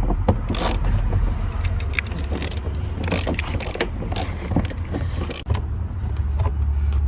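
Clicks, scrapes and rattles of hand tools working at a car seat's T40 Torx mounting screws, over a steady low hum.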